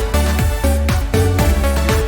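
Upbeat electronic background music with a steady four-on-the-floor kick drum and bright synth notes.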